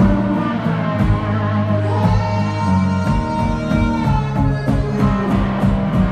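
Live electric blues: slide guitar on a resonator-style guitar over a second guitar, with a steady bass-drum beat about twice a second.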